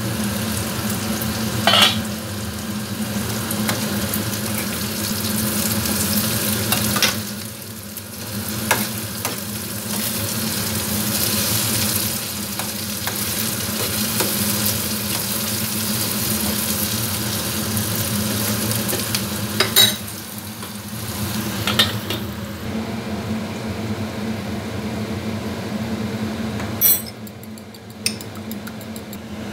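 Potato sticks and green peppers sizzling as they fry in an aluminium pan, over a steady low hum, with a spoon knocking against the pan now and then as they are stirred. Near the end the sizzle drops away and a spoon clicks quickly and evenly against a bowl as raw eggs are beaten.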